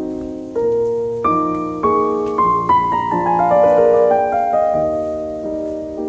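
Background piano music: a slow melody of ringing notes, with a run of notes stepping downward through the middle.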